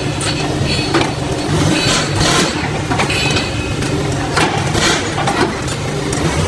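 Background music with a steady beat over a low, steady drone.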